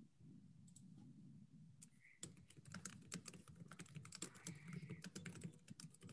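Faint typing on a computer keyboard: a run of quick, irregular key clicks that starts about two seconds in, over a low room hum.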